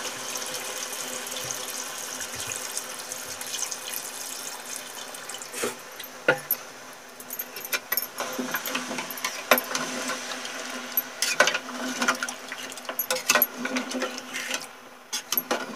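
Water pouring in a steady stream into a metal cooking pot of fried goat trotters and masala, then a metal spoon stirring the curry, clinking and scraping against the pot in a string of sharp knocks.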